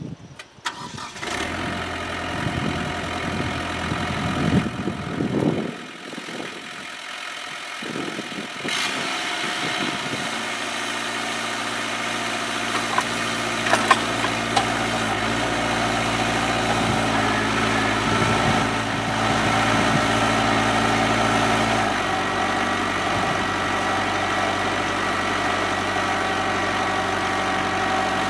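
Kubota B7800 compact tractor's diesel engine starting about a second in and running unevenly for several seconds, then settling into a steady run, with a change in its tone about twenty-two seconds in.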